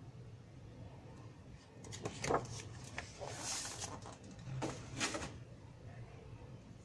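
A magazine page being turned by hand: paper crinkles and rustles, with a soft sliding swish in the middle.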